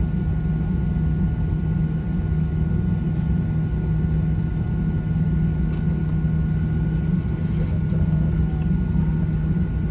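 Cabin noise of a Boeing 737-800 taxiing slowly to the gate: its CFM56 engines at idle give a steady low drone with a faint thin high tone above it.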